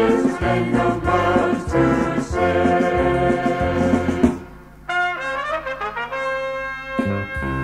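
A Salvation Army-style brass ensemble with trombones playing a hymn-like piece. About four seconds in the ensemble breaks off for a moment, a thin line of held notes follows, and the full ensemble comes back in near the end.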